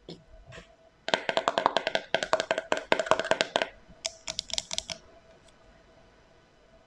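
Slime being squeezed and pressed by hand, giving fast, irregular runs of sharp wet clicks and pops, about ten a second, for two to three seconds and then again for a second.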